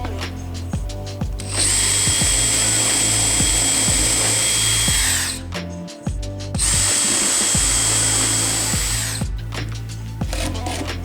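A power tool running twice for about three to four seconds each, with a steady high whine that winds down as each run stops. Background music with a steady beat plays underneath.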